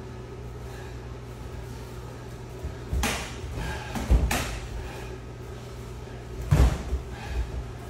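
Thuds of gloved punches and shin-guarded kicks landing during stand-up sparring: three main hits, about three seconds in, a second later, and again past six and a half seconds. A steady low hum runs underneath.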